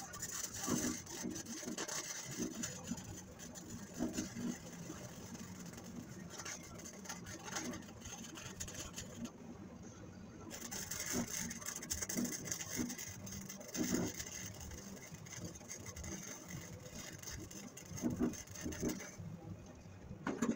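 Arc welder crackling as a steel bracket is welded in, in two long runs with a short break about nine seconds in; it stops shortly before the end.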